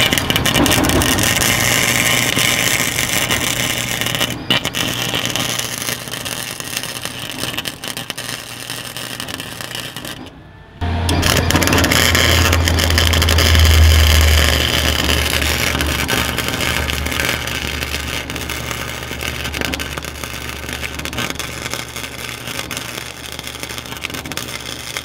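Electric arc welding on steel: the arc's steady crackle and hiss as a bead is laid. It breaks off briefly near the middle and resumes, with a steady low hum under it from then on.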